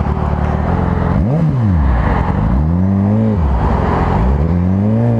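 Sport motorcycle engine idling, then revved up and down twice, each rev about a second long. About four seconds in its note rises and holds higher as the bike pulls away.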